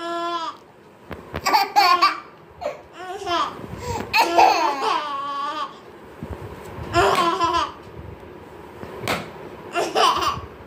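A baby and a toddler laughing and babbling in short vocal bursts every second or two.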